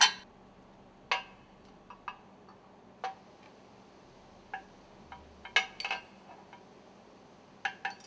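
Metal ring segments of a two-stroke engine's stuffing box clinking as they are lifted off the piston rod and set down in stacks on the work table: short, sharp taps and clinks about once a second, some in quick pairs.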